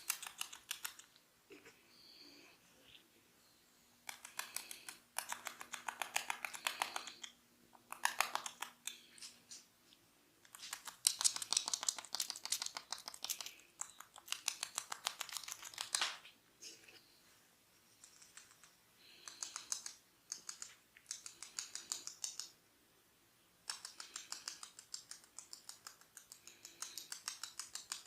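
Hair cracking: fingers rubbing and tugging tufts of hair against the scalp, giving rapid crackling clicks in bursts of a few seconds with short pauses between.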